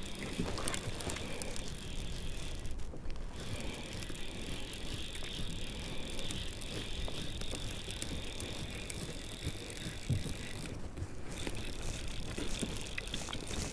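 Fly reel's click-and-pawl drag buzzing as a hooked wild brown trout runs and pulls line off the reel, with two short pauses in the run.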